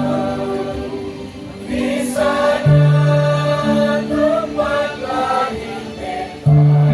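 A choir singing, holding sustained chords that change every second or so.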